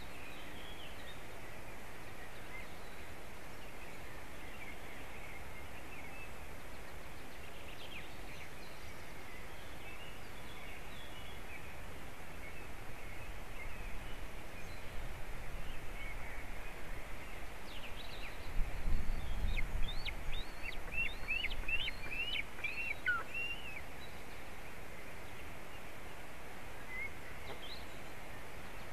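Steady outdoor background hiss with scattered short, high bird chirps. About two-thirds of the way in comes a brief low rumble and a cluster of rapid high chirps and calls.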